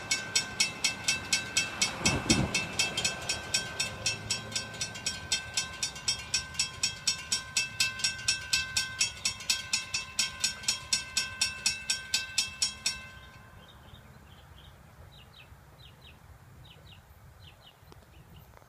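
Railroad grade crossing warning bells ringing in rapid, even strokes as the gates lower, warning of an approaching train, then stopping abruptly about 13 seconds in. A brief low whoosh passes about two seconds in.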